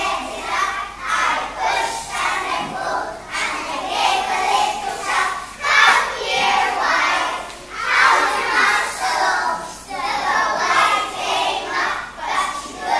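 A group of young children shouting and chanting together, their voices overlapping and swelling in loudness every second or two.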